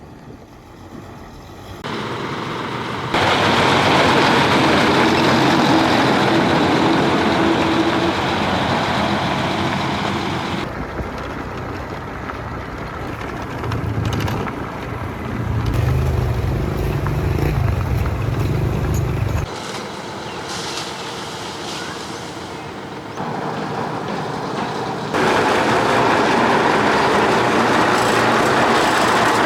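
Heavy diesel machinery running, in several cut-together stretches that change abruptly in loudness and character, with a deep rumble in the middle section.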